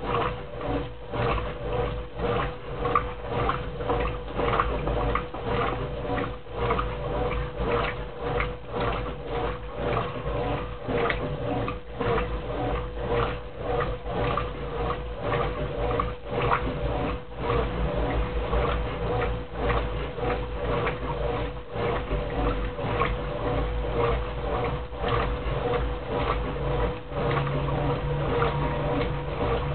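Brastemp Clean 10 kg washing machine washing a duvet: a steady motor hum with water sloshing and churning in uneven pulses. A lower hum joins in near the end.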